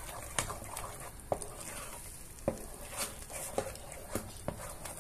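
Thick mashed-potato purée being stirred in a pot with a silicone utensil: a soft steady sound of the mash being worked, with irregular light knocks of the utensil against the pot, about one every half second to second.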